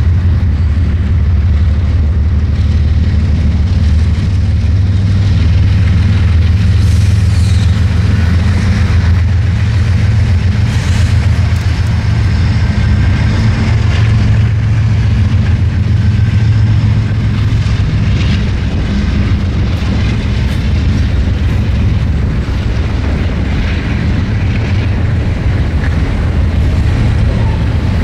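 Freight train rolling past close by: Norfolk Southern diesel locomotives going by at the start, then a long string of boxcars and covered hoppers. It makes a steady, loud low rumble with scattered wheel squeals and clicks on the rails.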